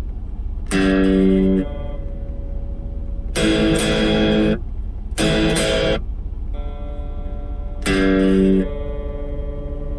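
Stratocaster electric guitar played through a Blackstar ID:Core V3 10-watt amp: four strummed chords, each cut short after about a second, with quieter notes ringing between them over a steady low hum.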